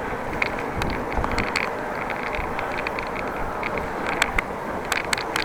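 Bicycle on the move with steady wind and tyre noise, and short high squeaks from the bike, several coming close together about four to five seconds in.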